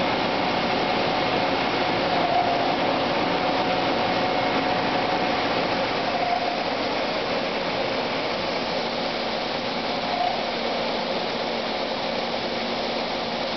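Droop & Rein FS130SKE bed-type CNC milling machine running a program, its end mill cutting a metal block: a steady mechanical hum and cutting noise, with a faint tone that swells briefly about every four seconds.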